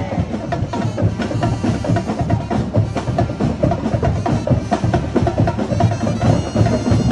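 Percussion ensemble playing a fast, steady rhythm of many rapid drum and struck-percussion beats, typical of festival street-dance music.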